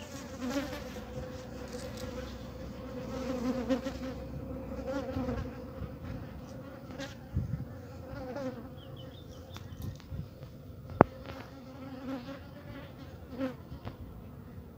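Asian honeybees (Apis cerana) buzzing around an open hive: a steady hum with a few light clicks and one sharp tap about eleven seconds in.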